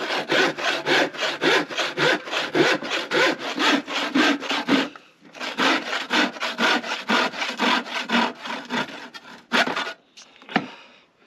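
A handsaw cutting through a wooden board in quick, even back-and-forth strokes, about four a second. The sawing pauses briefly about halfway, then carries on until the cut finishes about ten seconds in.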